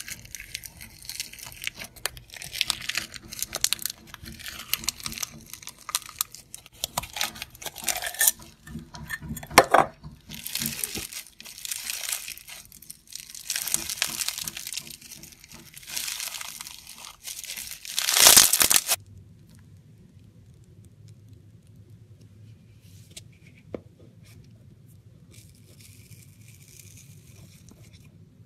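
Foam-bead slime (floam) squeezed and stretched by hand, making a run of short, irregular crackling sounds, loudest about 18 seconds in. After that it drops to a faint low hum with a single small click.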